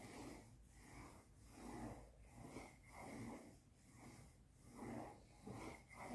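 Faint scratching of a coloured pencil drawing on paper, in repeated strokes a little more than one a second.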